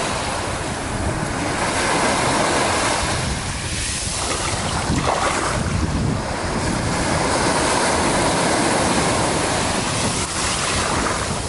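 Sea waves washing onto a beach, a steady rushing that swells and eases, with wind buffeting the microphone.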